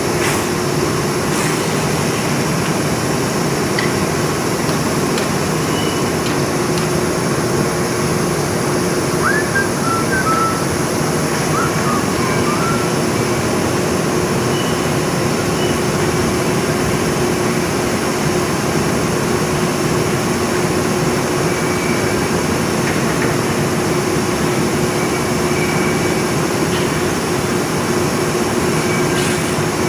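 Steady industrial machinery noise on a PC strand production floor: a continuous even mechanical din with a steady mid-pitched hum running under it, and a few faint high squeaks about a third of the way in.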